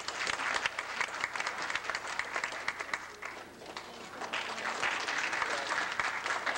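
Audience applauding, easing off briefly a little past halfway, then picking up again.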